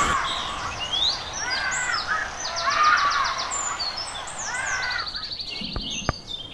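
Birds calling outdoors: a series of repeated lower, arched calls, with quick runs of high notes and, about five seconds in, a rapid high trill. A couple of sharp clicks come near the end.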